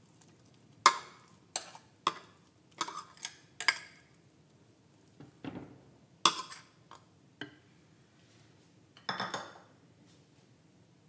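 Steel spoon clinking and scraping against a ceramic bowl and a clay cooking pot while thick ground coconut-and-curd paste is scooped into the pot: a series of sharp clinks and taps, with a longer scrape near the end.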